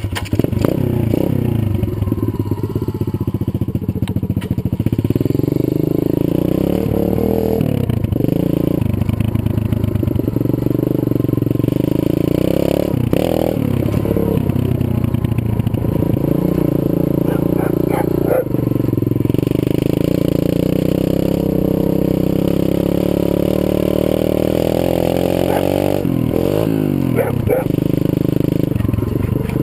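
Zongshen 125cc pit bike's single-cylinder four-stroke engine starting abruptly, then running with the revs rising and falling as the bike is ridden, with a few brief knocks along the way.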